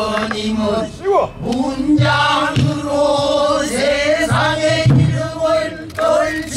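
A man singing a pansori danga solo, holding long notes that bend and waver, with short breaks for breath. A few short low thumps sound beneath the voice.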